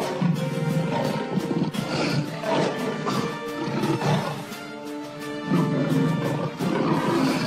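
Lion growling and roaring in repeated rough bursts over background music.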